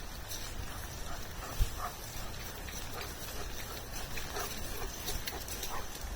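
A dog whining in short, faint whimpers now and then, with one low thump about a second and a half in.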